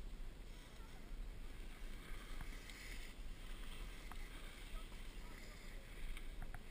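Wind rumbling over an action camera's microphone while skiing, with the steady hiss of skis sliding over chopped-up piste snow and a few light clicks near the end.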